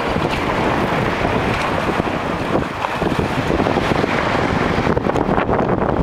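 Wind buffeting the microphone, with the wash of shallow sea water at the shoreline beneath it.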